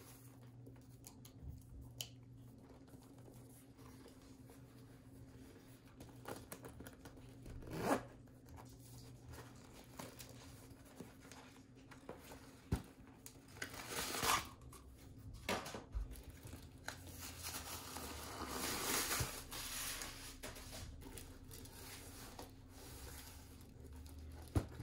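Side zipper of a Demonia Camel 202 platform boot being pulled open and closed in several short rasping strokes, with one longer rasp in the last third. Between the strokes there is quiet rubbing and handling of the boot.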